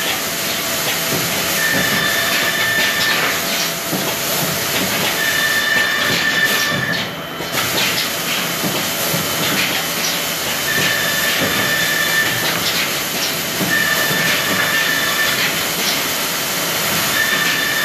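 Panel-processing woodworking machinery running with a steady loud hiss and scattered clicks. A high whine comes in for about a second and a half at a time, several times over, as particleboard panels are fed through.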